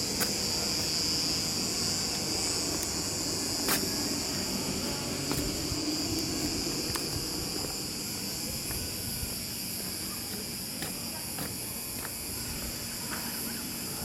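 Steady high-pitched insect chorus, with a low rumble beneath and a few short clicks, the sharpest about four seconds in.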